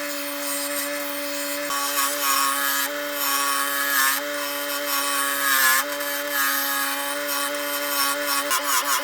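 A power tool running steadily on wood: a continuous motor whine under rough scraping and rasping as it cuts into the wood.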